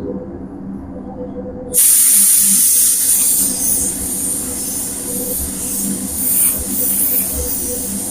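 Compressed-air paint spray gun spraying primer-filler: a loud steady hiss that starts suddenly about two seconds in, over a steady low hum.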